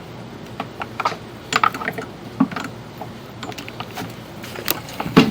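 Irregular small clicks and knocks from equipment being handled, over a steady low hum.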